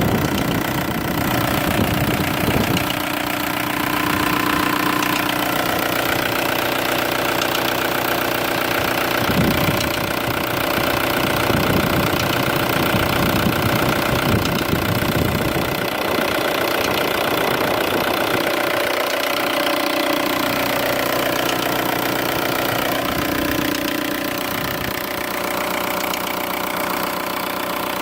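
Volkswagen ALH 1.9 TDI four-cylinder turbodiesel idling with a rapid, steady ticking. The tick comes from the camshaft sitting about one tooth out of time with the crankshaft after a timing belt job.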